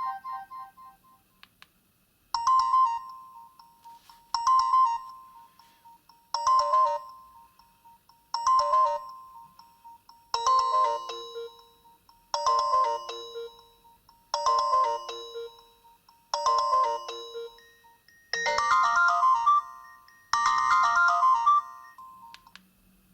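Nokia 215 4G mobile phone playing a ringtone: a short chiming melodic phrase repeated about every two seconds, about ten times, growing fuller toward the end.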